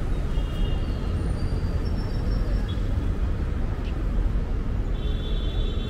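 Steady low rumble of city street traffic, with faint thin high-pitched tones near the start and again near the end.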